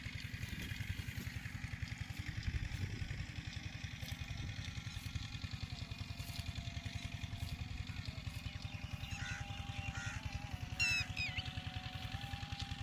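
An engine running steadily, a rapid low thudding that holds an even level.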